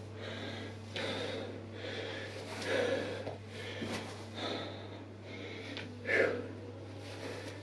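A man's hard breathing while exercising: forceful exhales and gasps every second or so, the loudest about six seconds in, over a steady low hum.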